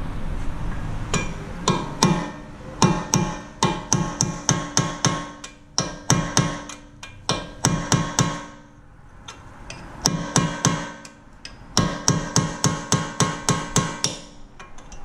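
Hammer striking a punch held against a seized Phillips rotor retaining screw on a Honda Civic front hub, knocking it loose. The blows are quick and metallic, about three a second, and each one rings. They come in two runs with a short pause about nine seconds in.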